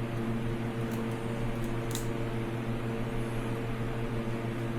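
Steady electrical or fan-like machine hum with a low buzz and its overtones, with a couple of faint light clicks about one and two seconds in.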